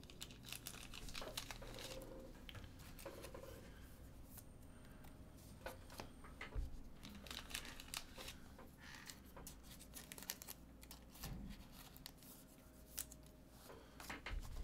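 Faint crinkling and rustling of card packaging being handled, with scattered light clicks and taps.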